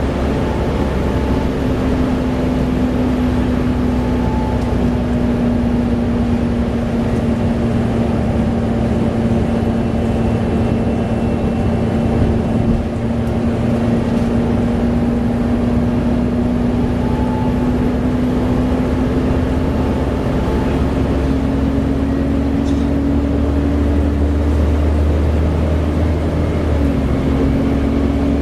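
Volvo B7TL double-decker bus under way, heard on board: a steady diesel drone with a strong whine from the engine and its loud cooling fan, the 'hoover'. The whine sags a little, rises again, and drops in pitch a short step near the end.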